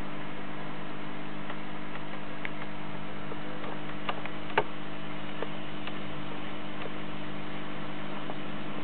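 A steady low hum with a faint hiss, broken by a few scattered light clicks, the loudest about four and a half seconds in.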